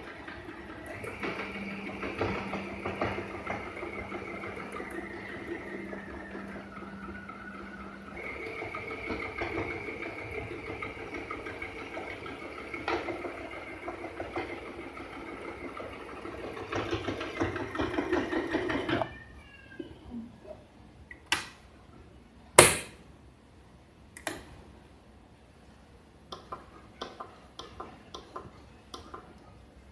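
FHSM-702 sewing machine running and stitching for about nineteen seconds, its steady motor hum shifting in pitch a couple of times, then stopping. A scatter of clicks and knocks follows, one sharp knock louder than the rest.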